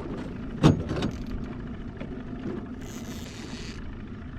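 Boat motor running steadily at trolling speed, with one sharp knock a little under a second in and a short hiss about three seconds in.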